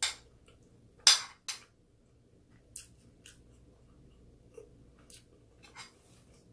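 Close-miked eating sounds from a mukbang meal of stew and rice: a scatter of short, sharp clicks and smacks, the loudest about a second in.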